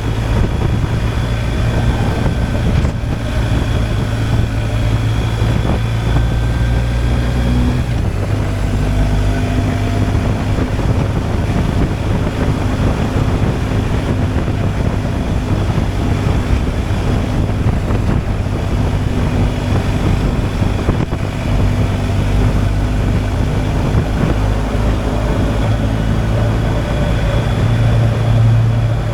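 BMW R 1250 GSA boxer-twin engine running at a steady cruise, with wind noise on the microphone. The engine note drops sharply about eight seconds in.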